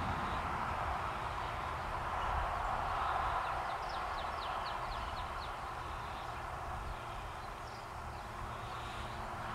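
Steady outdoor background hiss and low rumble, with a bird's quick run of about eight short falling chirps, some four a second, a little before the middle.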